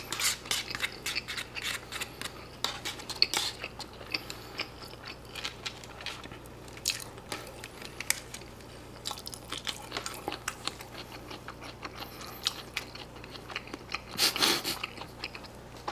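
Close-up eating sounds: wet chewing and lip-smacking on pizza-cheese pork cutlet, with a plastic spoon clicking and scraping in a plastic lunchbox tray. Many short clicks and smacks, and a louder noisy stretch about a second before the end.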